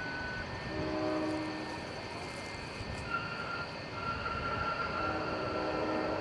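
Jet airliner passing on landing, with a steady rushing engine noise and a few faint whining tones. It grows a little louder after about four seconds.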